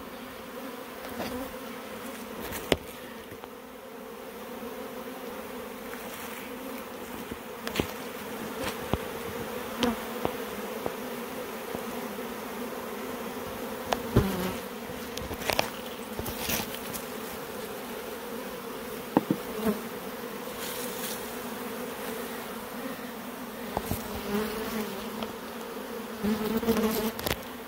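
A honey bee colony buzzing in a steady hum as a mass of bees crawls over a board ramp into the hive during a colony split. A few sharp clicks break the hum.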